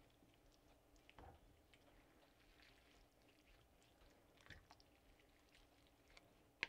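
Near silence, with a few faint soft knocks and wet stirring sounds from a wooden spoon moving through chunky soup in a Dutch oven.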